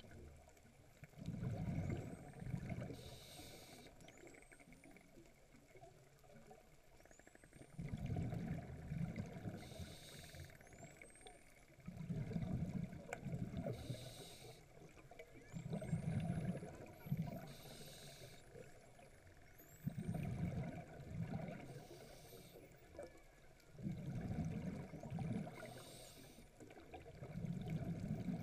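Underwater: a diver's breathing, a low rush about every four seconds with a short hiss after each. Between breaths, spinner dolphins give several faint, brief whistles that rise in pitch.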